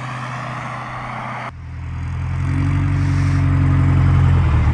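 Light bush plane's propeller engine running on the ground, at first farther off under a wind-like hiss; then, about a second and a half in, a much closer engine that grows steadily louder as the plane comes toward the listener.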